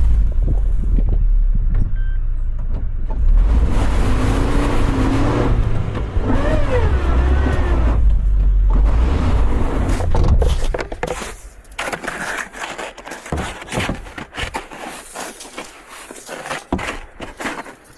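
A vehicle's low, steady rumble that stops about ten seconds in, followed by scattered light clicks and knocks.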